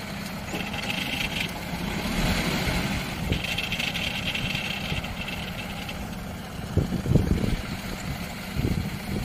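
Rice combine harvester engine running steadily while the machine stands still, with a high hiss that comes and goes. A few low thumps come near the end.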